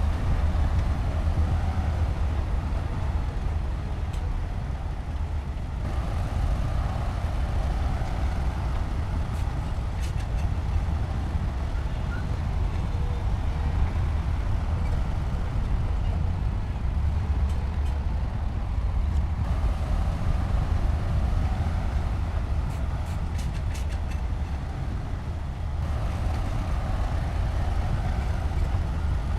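Heavy diesel engine of construction machinery running steadily under load, with a deep continuous rumble. Its mid-range tone changes abruptly a few times, and faint metallic clicks come now and then.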